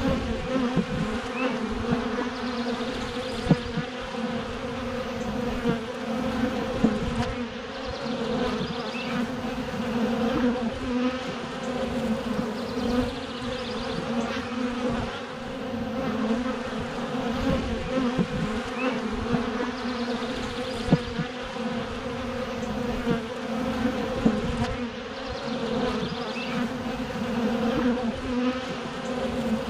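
Honeybees buzzing around a hive in a steady drone, with a few brief louder moments now and then.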